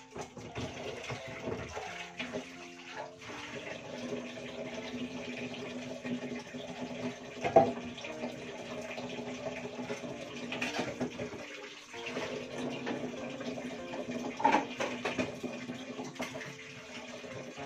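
Tap water running steadily into a sink as dishes are washed, with scattered clinks and a sharp knock about seven and a half seconds in, the loudest sound.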